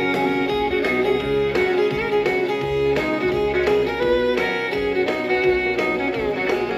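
Instrumental break of a country band song, fiddle playing over guitar and a steady beat, with no singing.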